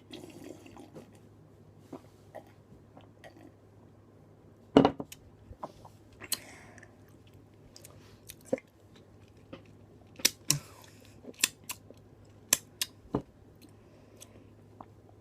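Someone chewing food close to the microphone, with scattered sharp clicks and knocks, the loudest about five seconds in.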